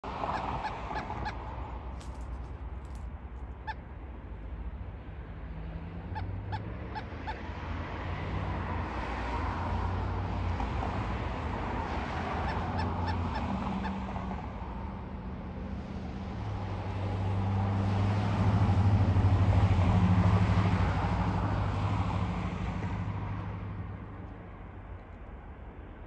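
Traffic passing on a road, swelling and fading in several waves with a low hum, loudest about two-thirds through. A few sharp clicks and knocks come in the first seven seconds.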